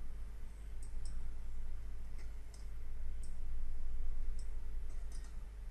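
Computer mouse clicking at irregular intervals, about nine soft single clicks and quick pairs, over a steady low electrical hum.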